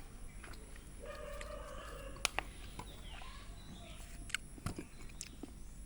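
A held animal call of about a second, with several even overtones, followed by a fainter falling call and a few sharp clicks.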